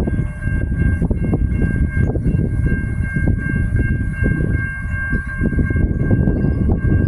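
Adelaide Metro 4000 class electric train approaching: a heavy, uneven low rumble with a steady high-pitched whine of several tones over it.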